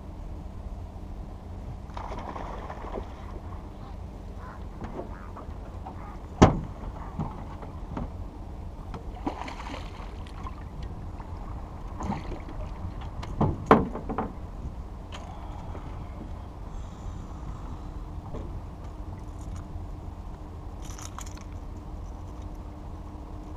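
A largemouth bass splashing at the side of an aluminum jon boat as it is landed, with sharp knocks on the boat's hull, one about six seconds in and a louder double knock about halfway through, over a steady low rumble.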